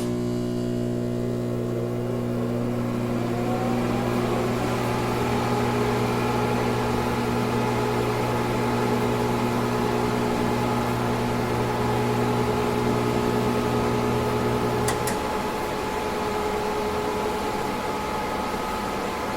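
DEC PDP-11/44 minicomputer just powered on: its cooling fans spin up in a rising whine over the first few seconds, then settle into a steady whir with a low hum. About fifteen seconds in there is a short click and the low hum drops out, leaving the fan whir.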